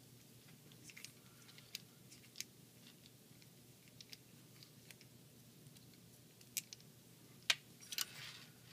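Scattered light clicks, ticks and scrapes of small plastic toy parts being handled and worked apart with a small screwdriver, the sharpest click about seven and a half seconds in.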